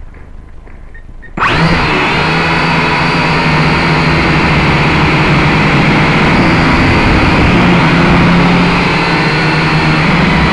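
Syma X5C quadcopter's four small brushed motors and propellers spinning up suddenly about a second and a half in, then running at a steady, loud, buzzing whine with a high tone on top.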